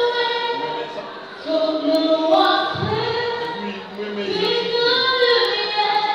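A young woman singing into a microphone, holding long notes that step from pitch to pitch.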